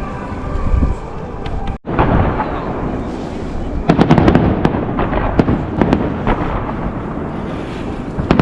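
Fireworks display: aerial shells bursting in a run of booms and sharp crackles. A steady hum before a sudden cut about two seconds in.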